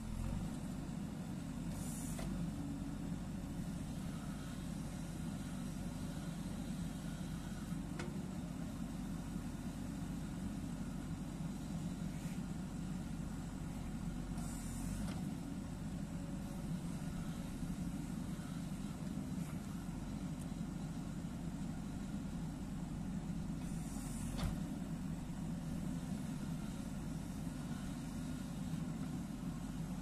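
JCB 3DX backhoe loader's diesel engine running steadily under load as the backhoe arm digs soil, with three short rushes of noise spread through.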